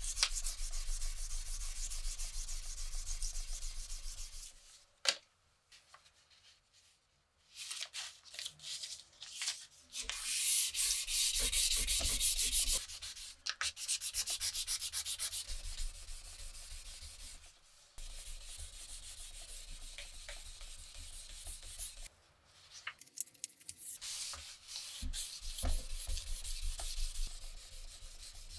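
Sandpaper rubbed rapidly back and forth by hand along a rusty steel machete blade, sanding off rust, in several long bouts of fast scraping strokes with short pauses between.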